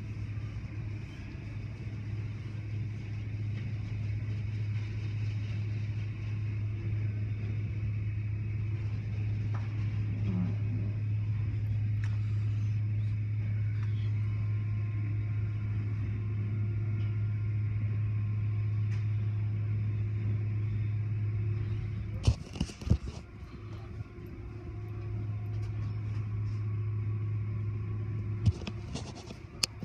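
Automatic tunnel car wash heard from inside the car: a steady low hum with a faint hiss of spray as cloth and brush strips work over the car. About two thirds of the way through the hum drops away for a couple of seconds while several sharp slaps land, and a few more slaps come near the end as the wash strips hit the car.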